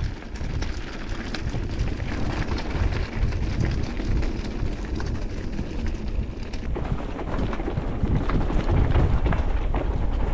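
Wind buffeting an action camera's microphone on a moving e-mountain bike over a rough trail, with frequent knocks and rattles. It grows louder about seven seconds in.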